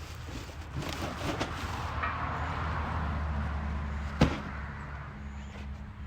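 Light knocks, then one sharp bang about four seconds in, over a low steady hum: the metal parts and packaging of a new sawmill being handled as it is unpacked.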